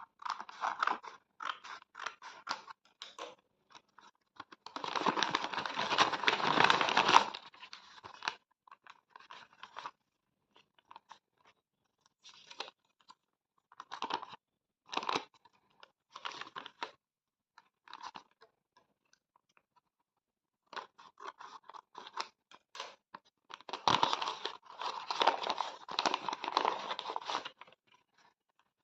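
Paper crinkling and rustling as a handmade paper blind bag is opened and its paper contents handled, in short bursts with two longer, louder stretches of crinkling, about five seconds in and again about twenty-four seconds in.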